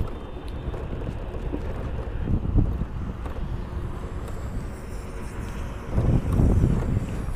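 Wind buffeting the microphone outdoors: a steady low rumble that swells for about a second near the end.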